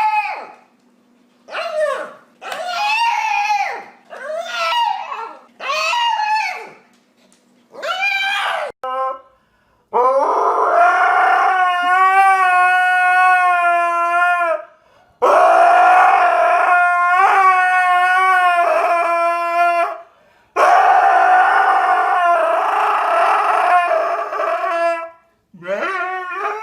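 A dog howling: first a run of short howls that rise and fall, about one every one and a half seconds. From about ten seconds in come three long drawn-out howls with a wavering pitch, each four to five seconds long, and a short howl starts near the end.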